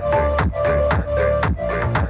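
Electronic dance music with a steady thumping beat and heavy bass, played loud through a BSZHI A62 Bluetooth speaker during its sound test.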